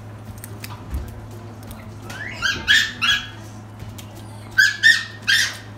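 Japanese macaques giving short, high-pitched calls: a run of three about two seconds in and another three near the end.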